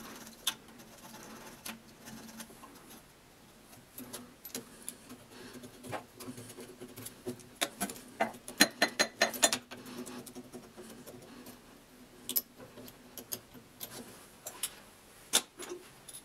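Metal plumbing fittings and an adjustable wrench clinking and clicking as a toilet cistern's water connection is taken apart, with a quick run of clicks about eight to ten seconds in.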